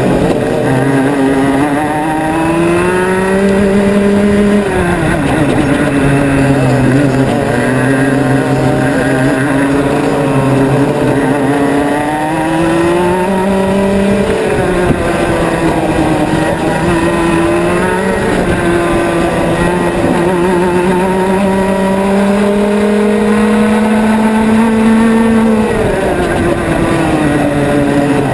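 Formula Rotax Max 125 cc single-cylinder two-stroke kart engine at racing speed, heard from onboard the kart. Its pitch climbs steadily as the kart accelerates, then falls sharply as the driver lifts for a corner. This happens three times: about five seconds in, around fourteen seconds and near the end.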